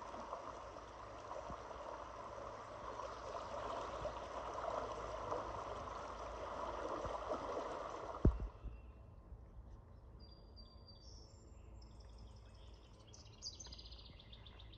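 River water rippling steadily over a shallow riffle, which stops abruptly with a single knock a little over halfway through. After that it is quieter, with several short high bird chirps.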